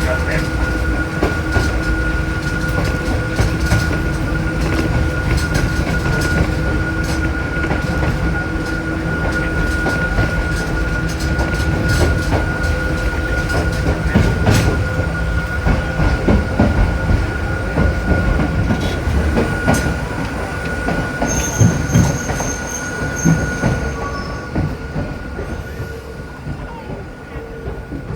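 Hakone Tozan Railway Moha 2 electric car running on the mountain line, heard from the front of the car: a steady motor whine over rumbling wheel noise and frequent clicks from the rails. A high wheel squeal starts about 21 seconds in and lasts a few seconds. The noise eases off near the end.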